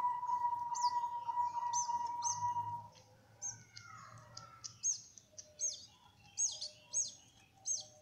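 Caged canaries chirping: short high chirps, each sweeping down in pitch, about one a second and loudest in the second half, with softer lower calls between. A steady tone runs under the first three seconds and then stops.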